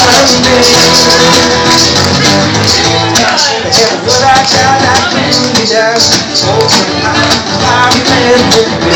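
Live amplified music: an acoustic guitar strummed with a man singing into a microphone through a PA speaker, with a light rattle from a hand shaker.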